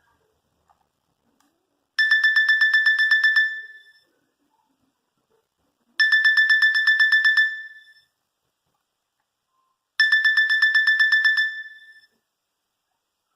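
Nokia 8110 4G phone ringtone: a high, fast-pulsing trill on a single pitch, about a second and a half long, fading out at the end. It rings three times, once every four seconds.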